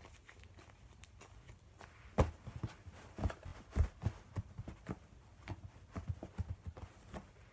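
Homemade Blu Tack slime being squished and poked by hand: a run of small, irregular pops and clicks, several a second, starting about two seconds in and stopping shortly before the end.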